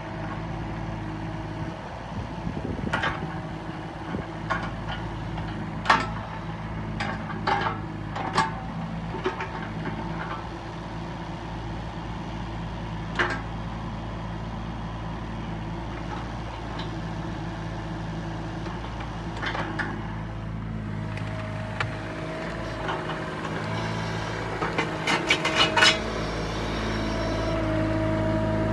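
JCB mini excavator's diesel engine running steadily while the boom and bucket are worked, with scattered metallic clanks and knocks from the arm and bucket. From about 21 seconds in a steady higher whine joins the engine and it gets a little louder, with a quick run of clanks a few seconds later.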